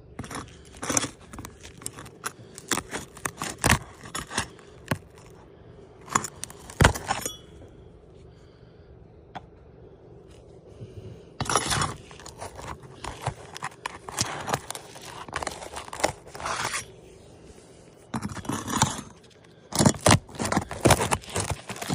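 Asphalt roof shingles being pried up and peeled back by hand: irregular scraping, crackling and tearing in clusters, with a quieter spell of a few seconds near the middle.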